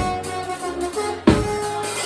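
Live band playing: held pitched notes over the band, with a loud drum hit at the start and another a little over a second in.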